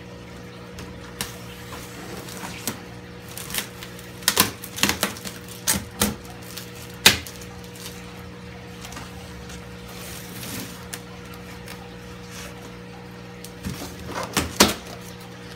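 Packing tape being peeled and ripped off a styrofoam shipping box in a series of short, sharp tearing crackles, bunched together a few seconds in and again near the end. Under it runs a steady low hum.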